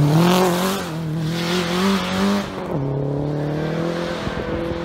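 Rally car's engine at high revs as the car slides past close by, with a hiss of thrown snow and gravel. About three seconds in, the engine note drops suddenly and carries on steadier and lower.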